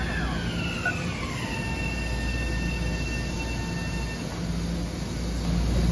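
Metro-North electric multiple-unit commuter train running past: a steady rumble of wheels on rails with a high whine that falls in pitch over the first second and a half, then holds steady until about four seconds in.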